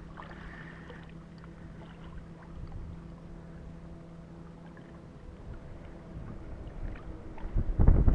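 Shallow water lapping and sloshing around a wader's legs, quiet at first and becoming much louder with splashing near the end.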